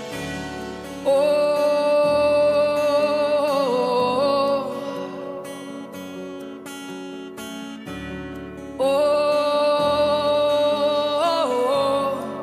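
Live band music: strummed acoustic guitar under a long, held high melody note with slight vibrato, which comes twice, each time lasting about three seconds and ending in small bends of pitch.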